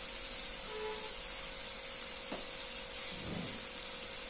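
Diced bottle gourd and chana dal sizzling steadily in oil in a steel kadhai, a thin high hiss under a faint steady hum. A soft knock comes a little past two seconds in, and a brief clatter about a second later.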